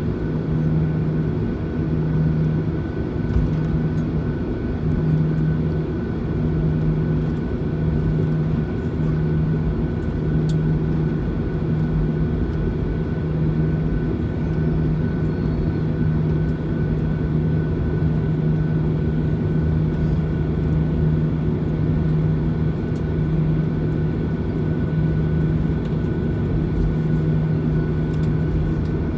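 Cabin noise of a Boeing 737-900ER taxiing on its idling CFM56-7B engines, heard from a seat over the wing: a steady rumble with a low hum that swells and fades about every second and a half, and a faint steady whine above it.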